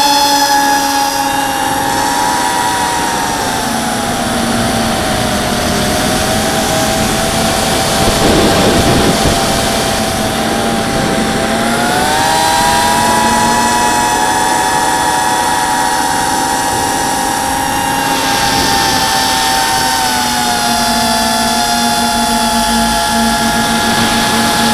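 The four brushless motors and propellers of a ZMR 250 mini racing quadcopter whine, heard from the onboard camera. The pitch drops a few seconds in, climbs again about twelve seconds in and sags a little near the end, following the throttle. About eight seconds in there is a brief rush of noise.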